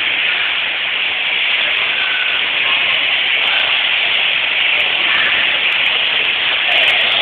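Steady rushing water noise of an indoor swimming pool, with swimmers splashing and the water sloshing.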